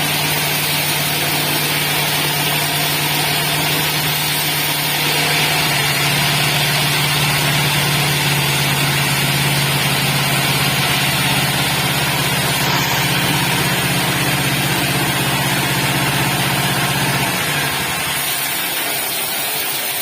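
Horizontal bandsaw sawmill with a 9 hp engine running on test, a steady low hum under a broad hiss; the low hum drops away near the end.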